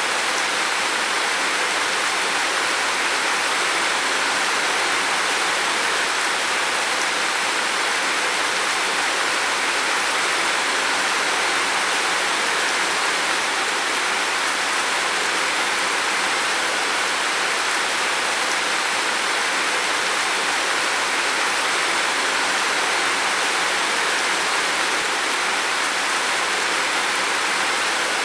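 Heavy rain falling steadily on a roof, a dense, even hiss with no single drops standing out.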